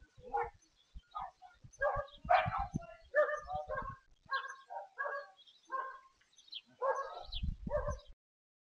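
Dog barking repeatedly, about a dozen short barks roughly half a second apart, with low thuds mixed in; the sound cuts off suddenly near the end.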